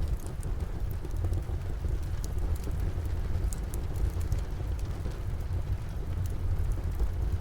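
Steady rain falling, with a deep continuous rumble underneath, and a wood fire crackling: scattered small sharp pops throughout.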